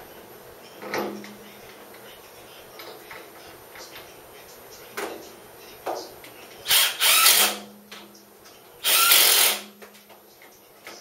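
Cordless drill-driver spinning in short bursts: a few brief whirs in the first half, then two louder runs of about a second each a little past the middle.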